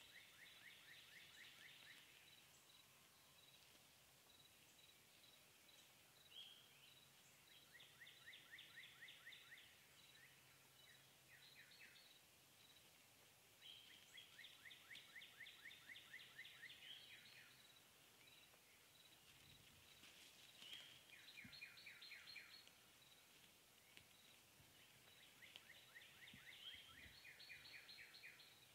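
A songbird singing faintly, each song a rapid trill of evenly spaced notes lasting about two seconds, repeated about five times with pauses of a few seconds between.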